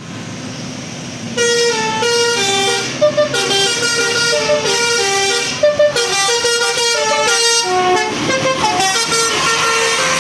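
Multi-tone 'telolet basuri' bus horn playing a melody of short stepped notes, starting about a second and a half in and continuing almost to the end, over a low steady rumble.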